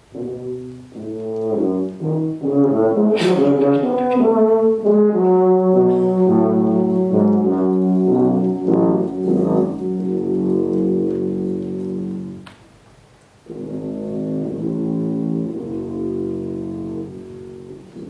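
Brass band of cornets, euphoniums and tubas starting up and playing full, held chords, with a brief cymbal-like crash early on. Near two-thirds of the way through the band stops for about a second, then comes back in more softly.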